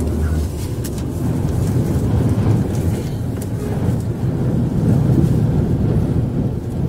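Storm-force wind buffeting the phone's microphone: a loud, steady low rumble that swells slightly now and then.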